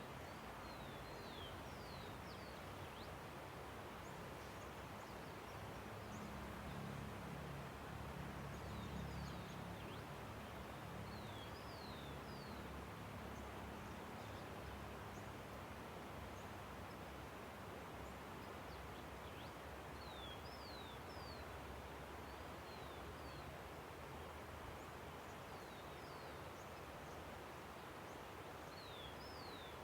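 Steady rush of a river, with small birds giving short, high, falling chirps in little groups every several seconds. A low rumble swells briefly about seven to ten seconds in.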